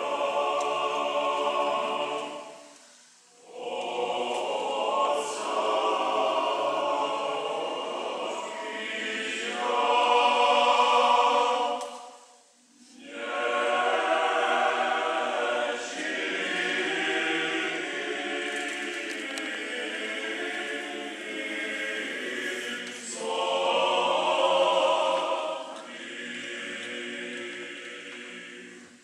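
Church choir singing Orthodox liturgical chant, unaccompanied, in long phrases broken by two brief pauses, about three seconds in and about twelve seconds in. The singing grows softer near the end.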